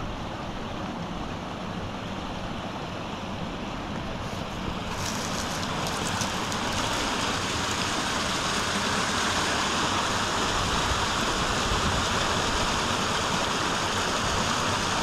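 A small rocky brook rushing over a little cascade between boulders, a steady rush of water. It grows louder about five seconds in and keeps building slowly.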